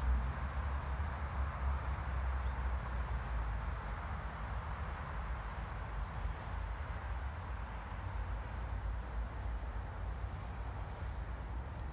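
Outdoor ambience among grass and weeds: a steady low rumble, heavier in the first half, with a few faint, short, high chirps from small animals scattered through it.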